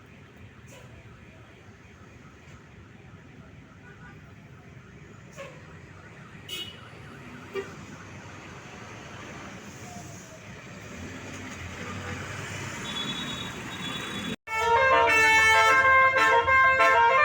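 Road traffic noise that slowly grows louder, with a few short sharp sounds. About fourteen seconds in, a bus's basuri telolet horn suddenly blares a loud melody of several chiming tones that change in pitch.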